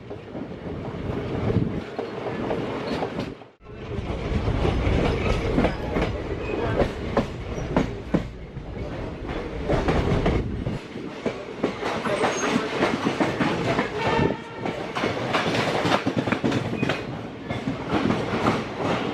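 Passenger train coaches running on the rails, heard from on board: a steady rumble with rapid wheel clicks and clatter over the rail joints. The sound cuts out abruptly twice, right at the start and about three and a half seconds in.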